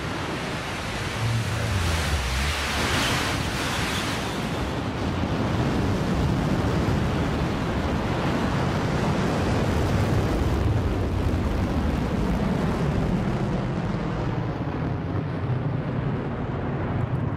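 Blue Origin New Shepard rocket's single BE-3 engine at liftoff and early climb: a loud, continuous rumble that builds over the first couple of seconds and loses its high hiss near the end as the rocket climbs away.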